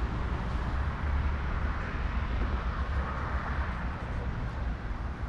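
Steady low rumble of a running road vehicle, with an even hiss above it.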